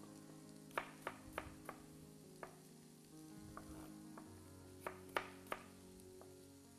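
Knife chopping apple on a cutting board: four quick chops about a second in, a single chop, then three more near the end, over quiet background music.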